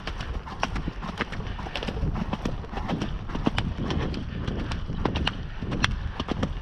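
A ridden horse's hooves striking the ground in a steady run of hoofbeats, over a low rumble.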